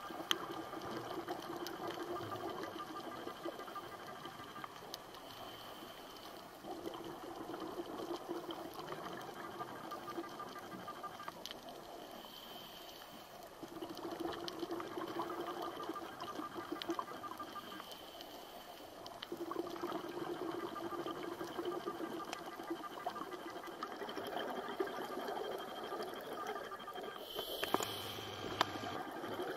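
Scuba diver breathing through a regulator, heard through the camera's underwater housing. Slow breaths come about every six seconds, each with a rising hiss and a bubbling rush, over scattered faint clicks. A louder gush of exhaled bubbles comes near the end.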